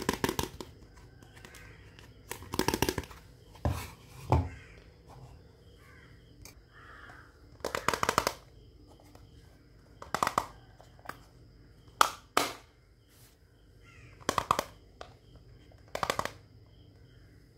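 Small hard-plastic miniature toy kitchen pieces, a stove and a microwave, being handled: short plastic clicks, taps and rattles that come in about ten scattered bursts.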